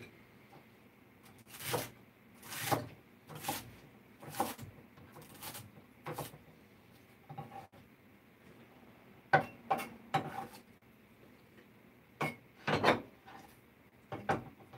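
A kitchen cleaver cutting celery on a cutting board: irregular knocks of the blade on the board, roughly one a second, with a couple of short pauses.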